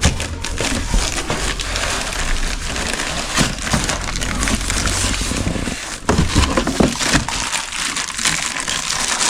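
Packaging being torn open and handled: crinkling plastic wrap and rustling cardboard, with scattered knocks and scrapes, as a new air compressor is unboxed.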